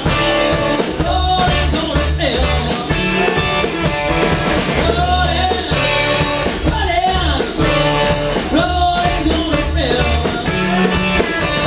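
Rock band playing an instrumental passage: drums keeping a steady beat under a bass line, with a lead melody, likely electric guitar, that bends up and down in pitch.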